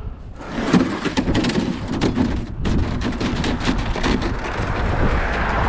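Plastic sled sliding and scraping down a snowbank, with many sharp, irregular crunches of snow underfoot and a steady low rumble underneath.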